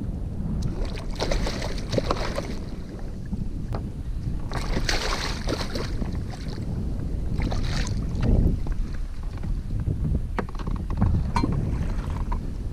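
Wind rumbling on the microphone, with three bursts of water splashing as a speckled sea trout is dipped into the water beside a kayak on a lip grip.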